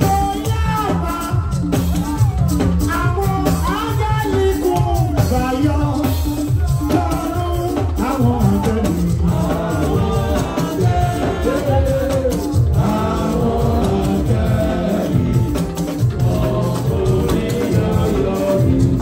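Live band music with a steady drum and bass beat and shaker-like percussion, a singer singing over it through a microphone.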